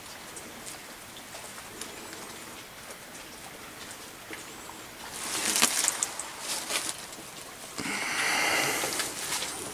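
Rustling and crackling of a person moving over dry leaf litter and sandy ground, with sharp clicks. It is loudest in a stretch about halfway through and a longer rustle near the end, over faint bird chirps.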